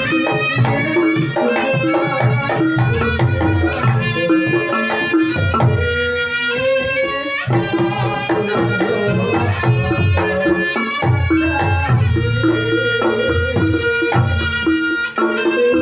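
Reog Ponorogo gamelan music: kendang drums play a dense, driving pattern under a held, reedy melody line, with a bending, rising note about six to seven seconds in.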